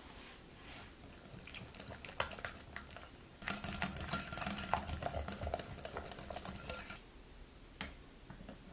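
Mixing in a glass bowl: a few separate clinks, then about three and a half seconds of rapid clicking and scraping against the bowl, which stops abruptly, and one last tap near the end.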